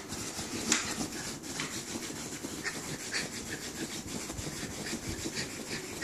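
Miniature schnauzer scratching hard at a bedsheet with its front paws: a quick, irregular run of rubbing, scraping strokes on the fabric, with one louder stroke about a second in.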